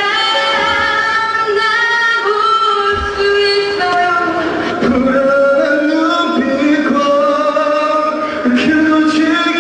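Singing through a microphone: a woman's voice in long held notes, then a young man's voice, with musical backing.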